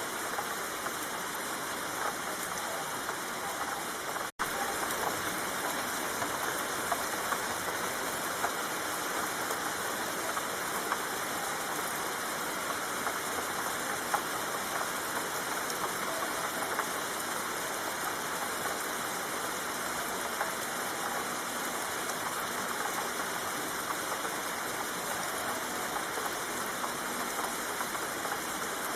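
Steady rain falling, an even hiss with scattered drop ticks; the sound drops out for an instant about four seconds in.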